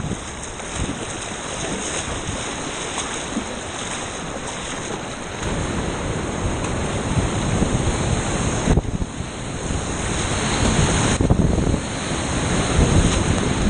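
Rushing whitewater of a river at high flow, about 6000 cfs, with wind buffeting the microphone; it swells louder and deeper about five seconds in and again near the end.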